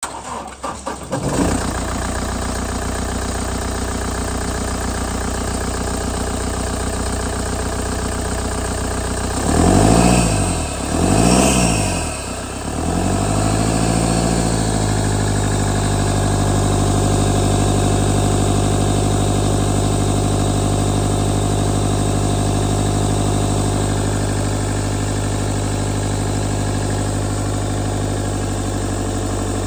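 2018 Toyota Hilux 2.8-litre four-cylinder turbo-diesel engine, heard from the open engine bay, catching about a second in and settling into a steady idle. It is revved twice, briefly, around ten seconds in, then drops back to an even idle.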